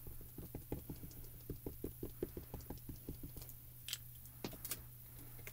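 Soft, quick taps of a small ink cube being dabbed onto a clear rubber stamp to ink it, several a second, thinning out after about three seconds, with a couple of sharper clicks near the end.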